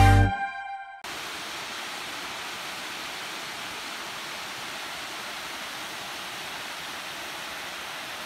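Background music stops and dies away within the first second. It gives way to a steady, even outdoor hiss like rushing water, strongest in the upper range.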